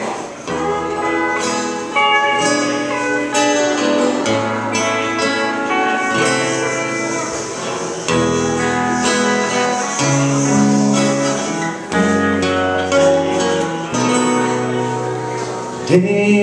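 Instrumental intro of a slow country-rock ballad played live on two acoustic guitars and a pedal steel guitar, with long held steel-guitar notes over strummed chords that change every second or two.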